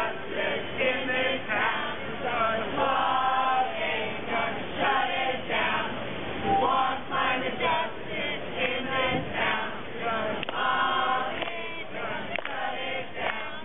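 A crowd of men and women singing a protest song together, a union song with reworded lyrics.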